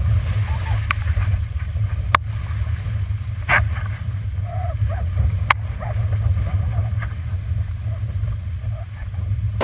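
Wind buffeting a GoPro camera mounted on a windsurf boom, heard as a steady deep rumble through its housing, with a few sharp clicks and knocks scattered through it.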